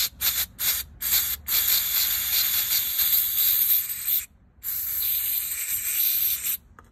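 Aerosol brake cleaner hissing as it is sprayed through a turbo oil feed banjo bolt to flush baked oil gunk out of its filter screen: several short squirts, then a long spray, a brief break just past four seconds in, and a second long spray that stops near the end.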